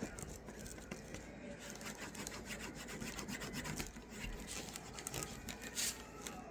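A cloth with burnishing gum rubbed back and forth along the edge of a leather knife sheath, a quiet, steady scratchy rubbing that smooths the rough edge.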